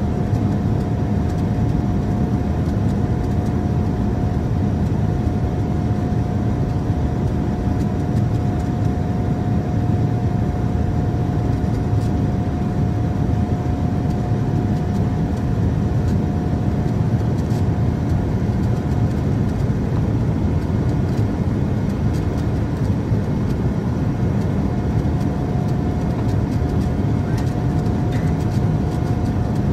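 Boeing 787-9 cabin noise heard inside the cabin during the climb after takeoff: steady airflow and GEnx-1B turbofan engine noise, a deep even rumble with a thin steady whine on top.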